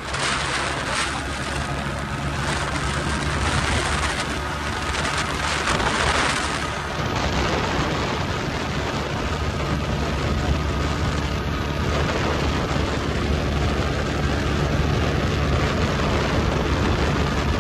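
Motorcycle engine running steadily at cruising speed, with wind rushing over the microphone; the wind noise is heavier for the first several seconds, then eases.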